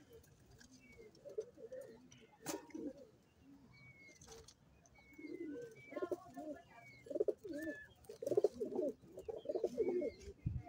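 Caged mixed-breed pigeons cooing, a run of pulsing low coos that grows stronger in the second half. Short high chirps are scattered throughout, and there is one sharp click about two and a half seconds in.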